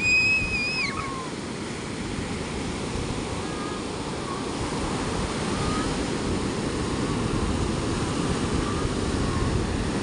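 Ocean surf breaking offshore and washing up the sand in a steady rushing wash. A brief high-pitched call sounds in the first second.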